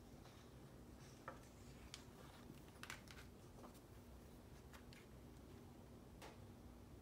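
Near silence: faint paper handling, with soft rustles and a few small clicks and taps as a cut paper piece is glued and pressed onto a scrapbook page.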